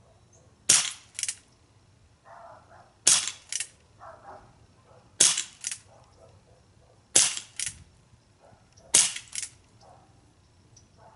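Umarex Colt Single Action Army CO2 pellet revolver fired five times, about two seconds apart. Each sharp pop is followed about half a second later by a quieter click.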